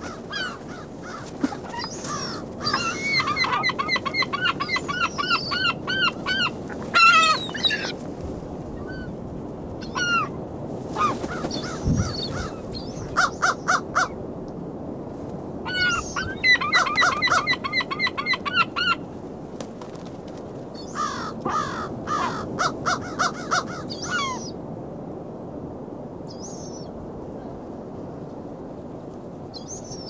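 Gulls calling in bouts of rapid, repeated yelping calls, several bouts of a few seconds each. The calling dies away about three-quarters of the way through, leaving only a couple of faint calls.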